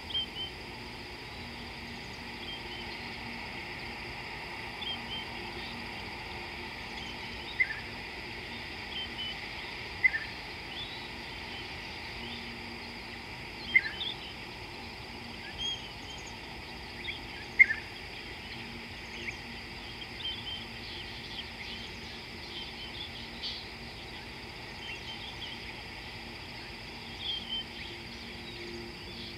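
Wild birds calling in the bush: scattered short high chirps, with four louder, sharp calls spaced a few seconds apart in the first two-thirds, over a steady outdoor hiss.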